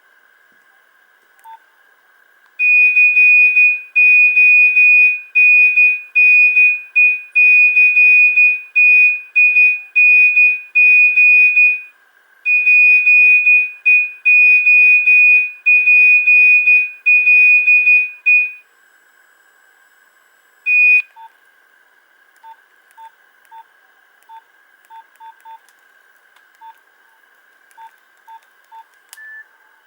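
Nokia 1110i monophonic ringtone playing through the phone's speaker: a rhythmic pattern of short, loud, high beeps all on one pitch for about sixteen seconds, then a single beep a couple of seconds later. After that only faint, soft pips are heard over a faint steady high whine.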